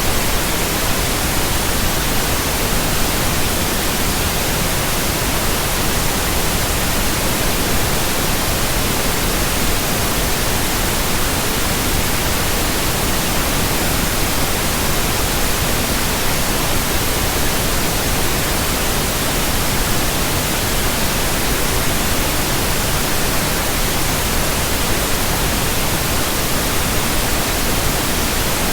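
Steady, unchanging pink noise, an even hiss played as a sleep and relaxation sound.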